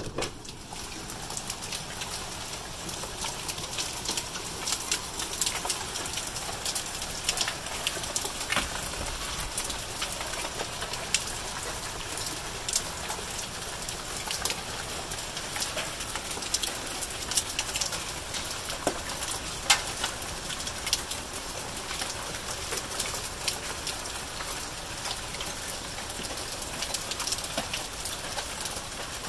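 Hailstorm with rain: a steady hiss with many sharp ticks of hailstones striking a wooden deck and a lawn. The sound jumps up suddenly right at the start, as an outside door is opened onto it.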